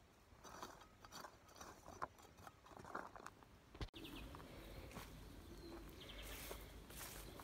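A hand trowel scraping and clicking in dry, stony soil, a string of short scratchy strokes. It cuts off suddenly about four seconds in, giving way to a steady outdoor hiss with a few quick chirping trills from small birds.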